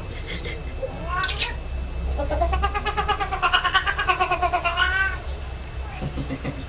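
A cat meowing: a short rising meow about a second in, then a long drawn-out meow that wavers up and down in pitch for about three seconds, with fainter calls near the end.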